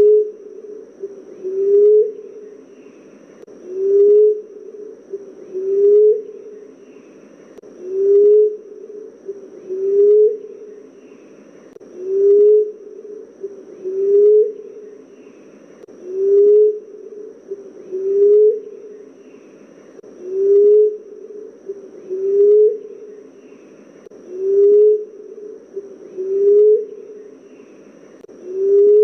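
Emerald dove cooing: a low, soft coo repeated steadily about every two seconds, each note swelling and rising slightly in pitch at its end.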